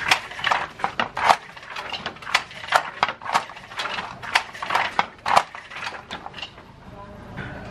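Wooden fly-shuttle handloom clacking as the weaver works it: the shuttle thrown along the race and the beater knocked against the cloth, quick uneven wooden knocks a couple of times a second that stop about six and a half seconds in.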